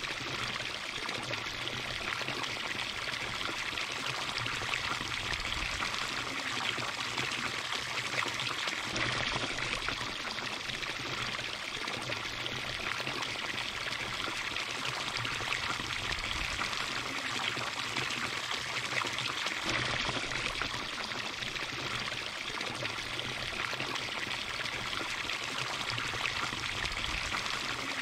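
A steady stream of water pouring from a metal spout into a stone trough, splashing into the water pooled in it.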